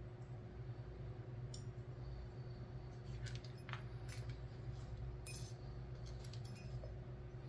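Small metal parts of a pin-tumbler lock clicking and clinking at irregular times as the lock is taken apart with a plug follower, over a steady low hum.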